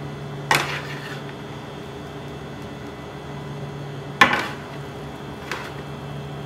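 Metal kitchen tongs clinking against a metal baking sheet while picking up roasted zucchini slices. There are three sharp clinks, the loudest about four seconds in, over a steady low hum.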